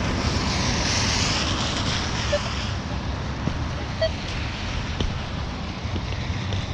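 Minelab Equinox metal detector giving two short beeps, about two and a half and four seconds in, over a steady rumble and hiss of wind on the microphone.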